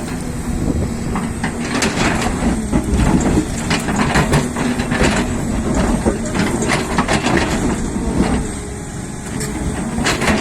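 Hyundai excavator's diesel engine running steadily, with many sharp knocks and scrapes of rock and soil against the bucket as it digs. The sound eases briefly a little after the middle.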